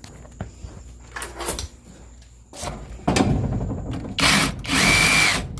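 A tool working at a front-load dryer motor's windings to bare the metal, which shows them to be aluminum rather than copper: a few light knocks, then two loud, harsh rasping passes in the second half, the last with a thin steady whine.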